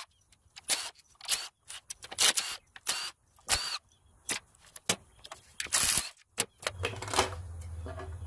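Irregular sharp metallic clicks and clinks as bolts are taken out and the aluminium timing cover is worked loose on a Chrysler Pentastar 3.6L V6. A brief scraping rush comes about six seconds in, and a steady low hum starts near the end.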